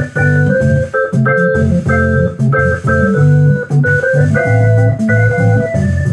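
Two-manual drawbar organ played with both hands: short, rhythmic chords over a moving low line.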